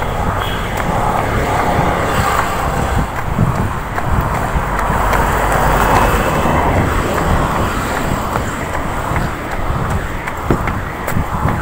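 Road traffic going by, with a car passing close about six seconds in, over the rustle and knocks of a phone carried by a runner.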